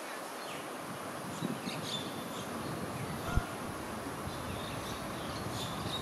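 Steady outdoor background noise with a few faint, short, high chirps and one low thump a little past the middle.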